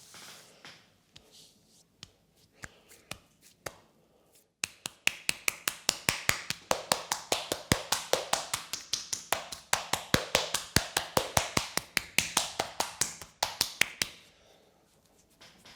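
Percussive hand strokes of a massage, sharp slaps or claps on the body coming quickly and evenly several times a second. They start about a third of the way in and stop near the end, after a few scattered taps.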